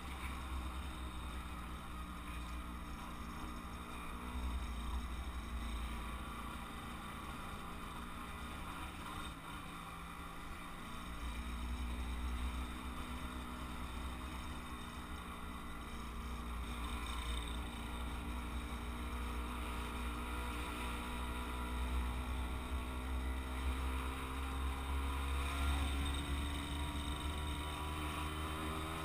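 Kreidler moped engine running under way, its pitch climbing gradually through the second half as it gathers speed, with wind rumbling on the microphone.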